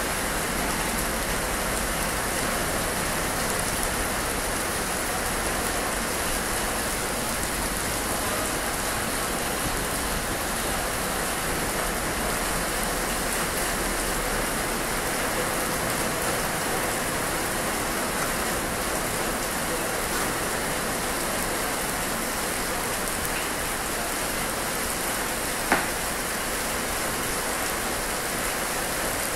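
Steady rain falling on open ground and vehicles, an even hiss. A single sharp click near the end.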